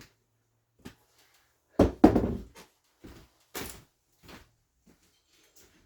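Scattered knocks and clatters of bathroom demolition debris being handled, with one heavy thud and clatter about two seconds in as the loudest.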